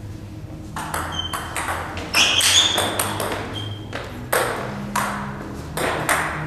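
Table-tennis rally: a celluloid ball clicking off bats and bouncing on the table in quick alternation, starting about a second in, each click echoing in the hall.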